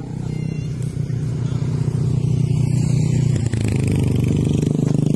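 Bamboo-bow kite hummer (sendaren) on a large kite, droning and buzzing in the wind as the kite is lifted for launch, growing louder over the first couple of seconds and then holding steady.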